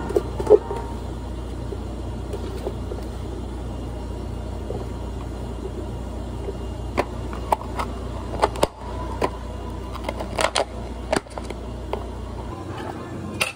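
Steady low machine hum of cafe equipment. Over it, in the second half, come a series of sharp plastic clicks and knocks as clear dome lids are pressed onto two plastic drink cups.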